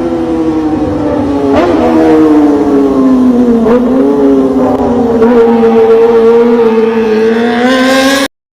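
Kawasaki Ninja 250's parallel-twin engine, fitted with a racing exhaust, held at high revs. The pitch sags slightly for the first few seconds, then holds and climbs again near the end before cutting off suddenly.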